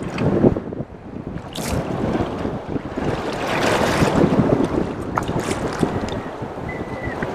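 Wind buffeting the microphone over water slapping around a small boat, with a couple of sharp splashes, one about a second and a half in and one near the middle.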